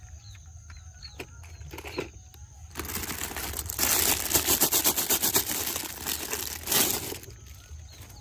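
Handling noise: a few light clicks, then from about three seconds in several seconds of dense, rapid rattling and crinkling that stops shortly before the end.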